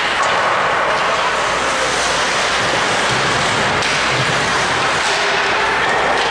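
Steady noise of an ice hockey rink during play, skates on the ice and arena hum, with a couple of faint knocks.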